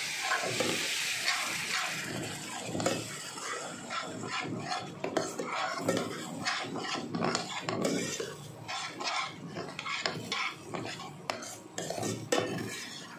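Metal spoon stirring and scraping spinach in a steel pan, with irregular scrapes a few times a second. A hiss from the water just added to the hot pan fills the first two seconds, and the mixture sizzles under the strokes.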